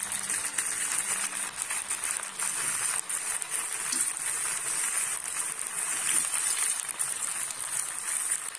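Yam sticks sizzling in hot vegetable oil in a frying pan, a steady crackling fry.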